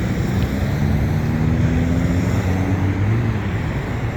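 Road traffic, with one vehicle's engine rising steadily in pitch as it speeds up, then dropping away near the end.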